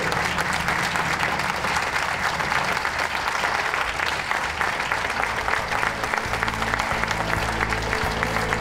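Audience applauding steadily; music comes in under the applause about six seconds in.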